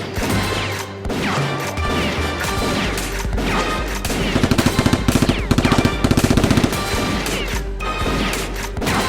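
Rapid automatic gunfire in about three quick bursts, some four seconds in, over background music.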